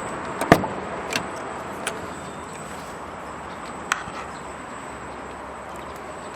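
Cab door lock and latch of a GAZ GAZelle van being worked after unlocking with the key: one sharp clunk about half a second in, then a few lighter clicks and knocks over a steady background hiss.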